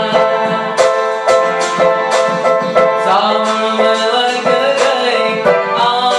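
A man singing to his own electronic keyboard accompaniment: held keyboard chords under a steady beat of about two clicks a second, with the voice wavering over them from about three seconds in.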